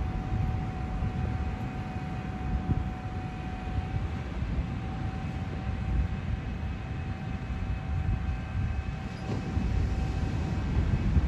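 Tractor towing a beach-cleaning sand rake, its engine running steadily: a low, uneven rumble with a thin steady whine over it.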